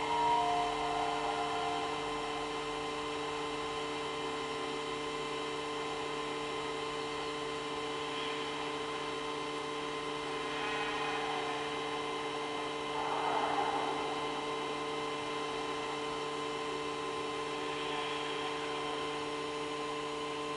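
AtmosFX WindowFX projector playing a Halloween scene through its small built-in speaker: a steady hum with faint sound effects swelling now and then, the loudest about two-thirds of the way through.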